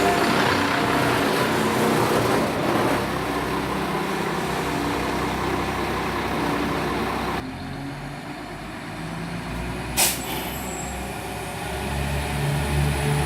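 Class 172 Turbostar diesel multiple unit standing at the platform. A steady hiss over the idling engines cuts off suddenly about seven seconds in, a single sharp knock follows about ten seconds in, and the low engine hum grows louder near the end.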